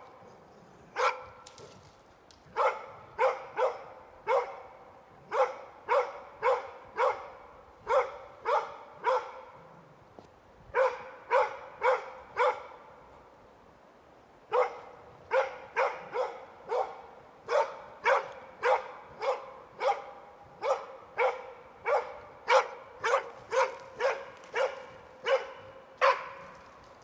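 Hunting dog bay-barking at a wild boar, holding it at bay. The barks are loud and evenly pitched, about two a second, in runs broken by a few short pauses.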